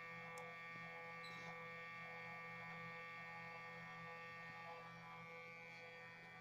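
Stepper motor of a homemade mini CNC driving its Y-axis lead screw, a steady electric whine and buzz made of many fixed pitches. There is a sharp click right at the start.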